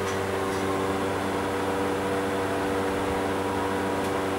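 Steady electrical hum of running machinery: a constant buzz of several even tones over a light hiss. A few faint ticks come near the start and again near the end.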